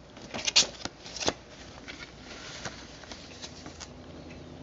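Paper and card handling: a View-Master paper booklet being closed and stacked with its cardboard reel sleeve and a reel. Sharp rustles and taps crowd the first second or so, then fainter rustling follows.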